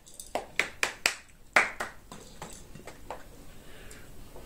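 Eating by hand at close range: a quick run of short sharp smacks and clicks, about six in the first two seconds, then only faint ticks.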